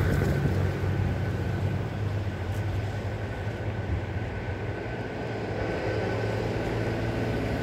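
Low, steady engine rumble with a faint steady whine above it.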